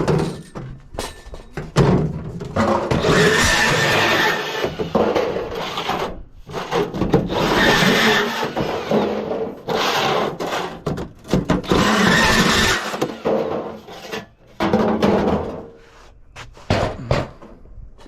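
Aluminium scrap being cut up with a power tool in four harsh, noisy bursts of about two seconds each, with short pauses and a few knocks between them.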